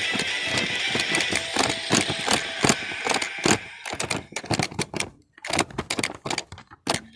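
A rapid, irregular series of sharp mechanical clicks, like a ratchet or typewriter, over a steady background haze that drops away about three and a half seconds in, after which the clicks go on with short silent gaps.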